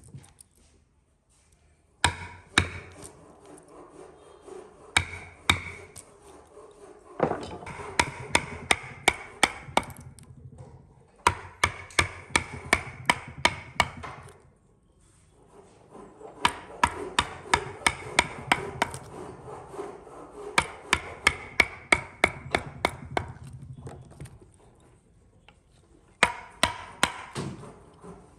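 Rapid runs of hard blows striking wood, about three a second, in stretches of several seconds broken by short pauses.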